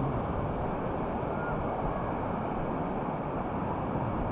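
Steady rush of waterfalls: an even, unbroken roar of falling water.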